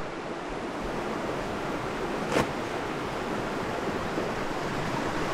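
Creek water flowing steadily, with a single short click or knock about two and a half seconds in.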